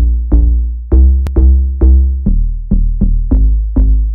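Electronic intro music with a drum-machine beat: heavy bass notes struck about twice a second, each fading quickly.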